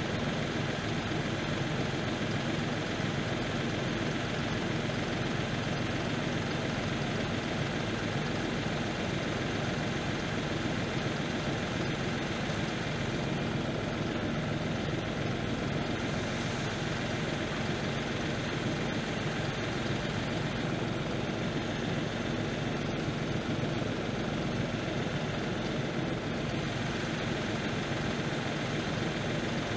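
New Holland compact tractor's diesel engine idling steadily.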